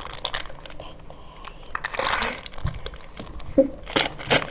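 Homemade squishy toys squeezed in the hands, giving crinkly rustling and handling noises in short uneven bursts, loudest about two seconds in and again near the end.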